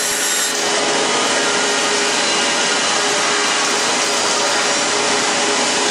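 CNC band saw running and cutting a curved wooden chair-leg blank: a steady, even machine whir with a faint constant hum beneath it.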